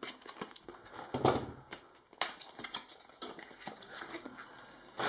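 Utility knife slitting the plastic wrap on a small cardboard cube box, then the box being handled: irregular light scratches and clicks, busiest a little over a second in.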